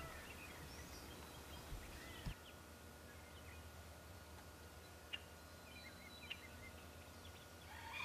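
Faint outdoor ambience: a steady low rumble with a few scattered, brief bird chirps.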